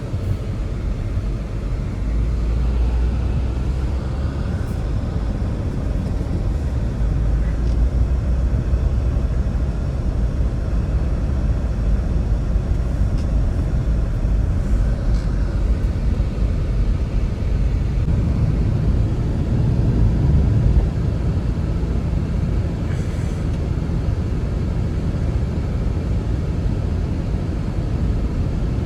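A loud, steady, low rumble with no clear pitch, starting abruptly and holding on without a break.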